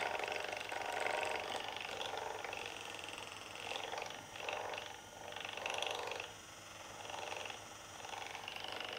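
Handheld percussion massage gun running against the thigh just above the kneecap, a steady buzzing purr that swells and fades every second or so as it is worked over the tendon.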